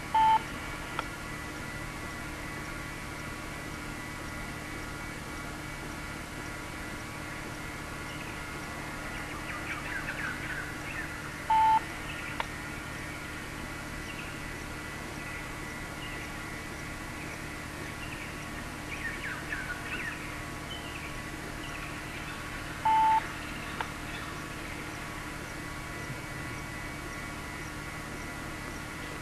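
Three short, loud beeps at one pitch, about eleven seconds apart: one right at the start, one near the middle and one about two-thirds through. They sit over a steady hiss and hum. Small birds chirp with quick falling notes between the second and third beeps.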